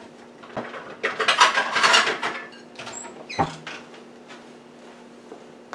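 Dishes clattering as a plate is taken out of a kitchen cupboard, a busy rattle of crockery about a second in, then a single knock.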